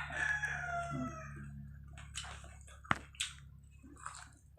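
A rooster crowing, the end of its call falling in pitch and fading out about a second in. Afterwards a few sharp clicks, one sharpest about three seconds in, over a steady low hum.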